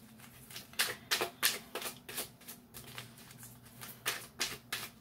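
A deck of reading cards being shuffled by hand: a quick, uneven run of crisp clicks and slaps, a few a second.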